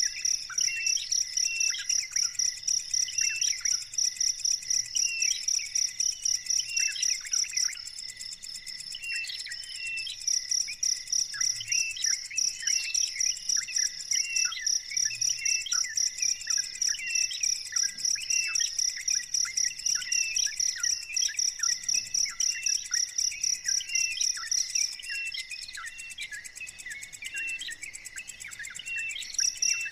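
An insect chirping in a fast, even pulse, pausing twice, with short high chirps about once a second throughout.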